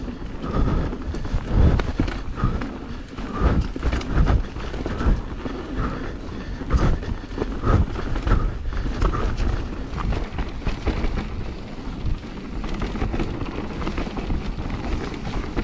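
Mountain bike ridden down a rough trail, heard from a bike- or helmet-mounted action camera: a steady low rumble with frequent sharp clacks and knocks as the bike rattles over the bumps.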